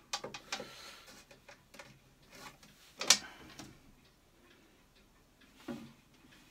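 Small plastic clicks and knocks from handling a toilet seat lid and a clip-on toilet night-light unit. The sharpest knock comes about three seconds in, where the plastic lid is lowered onto the seat, and a softer knock follows near the end.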